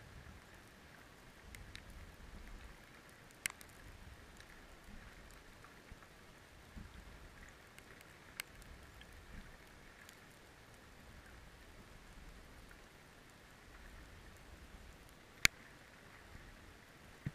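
Faint underwater ambience heard through a camera housing: a steady low hiss and rumble, broken by a few sharp isolated clicks, the loudest near the end.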